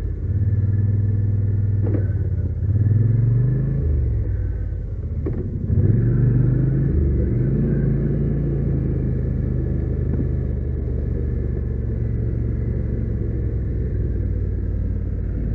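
Polaris Sportsman XP 850 ATV engine running as the quad rides along a dirt trail, rising in engine speed about six seconds in, with a few light knocks.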